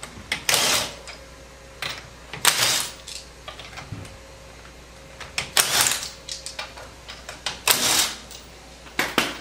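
Cordless impact wrench rattling in short bursts of about half a second, five times a couple of seconds apart, as it breaks loose and spins off a car wheel's lug nuts.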